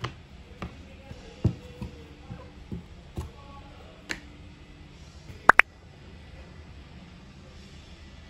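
Soft background music with a scattering of light taps and clicks over the first few seconds, then a sharp double click about five and a half seconds in.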